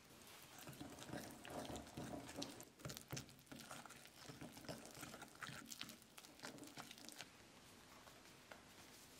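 A fork stirring egg, oil and water into flour in a mixing bowl: faint scraping and quick clicks of the fork against the bowl as the strudel dough comes together. It dies down about seven seconds in.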